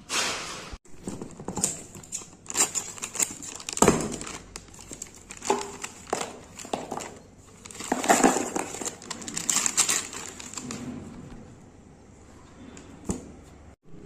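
Hands handling cardboard and a thin plastic packet: rustling, taps and clicks, with a longer stretch of plastic crinkling about eight seconds in as the packet is tipped out into the box.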